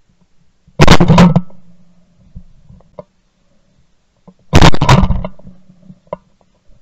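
Two very loud shotgun blasts from a Benelli Super Black Eagle 3 semi-automatic shotgun, about four seconds apart, each ringing out briefly after the report.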